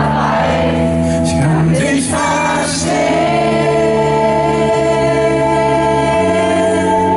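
Live pop band playing the chorus of a slow ballad, with singing voices; a long sung note is held from about three seconds in.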